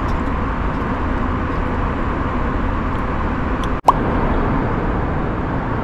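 Steady in-flight cabin noise of a jet airliner, a constant low rushing of engines and airflow. About four seconds in there is a brief dropout and a sharp click.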